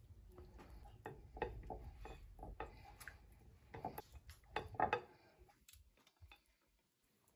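Light clinks and taps of fingers and a floured fish fillet against a ceramic plate as the fillet is turned in beaten egg. The taps come irregularly and die away about five and a half seconds in.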